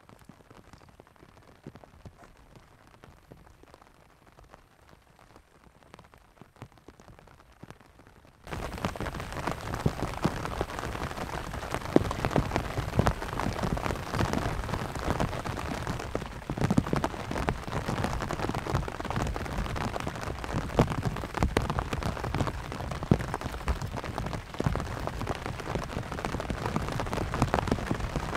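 Rain pattering on a canvas tent, a dense steady patter of drops that comes in suddenly about eight seconds in; before that only faint scattered drips.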